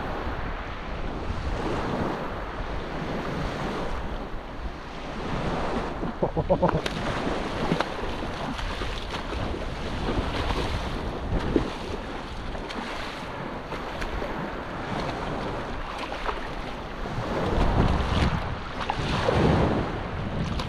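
Small waves washing and lapping in shallow surf, swelling and easing, with wind buffeting the microphone.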